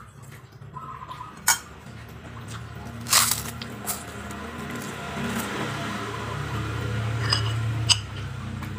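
Metal spoon scraping and clinking on a ceramic plate while scooping up rice, with sharp clinks about a second and a half in, around three seconds in and near the end. A low hum grows louder through the second half.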